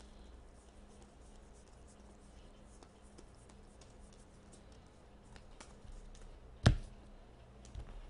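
Baseball cards handled and flipped through, with soft rustling and faint clicking of card edges. Near the end comes one sharp knock on the desk, the loudest sound, followed by a smaller one a second later.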